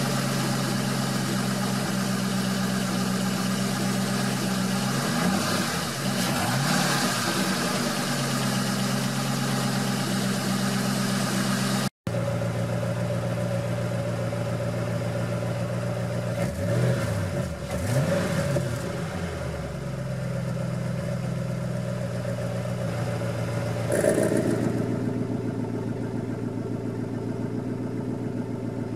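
A 2009 Ford Mustang's 4.6-litre V8 idling through its exhaust, revved briefly a few times. About five seconds before the end the electric exhaust cutout valves open and the exhaust turns louder and rougher.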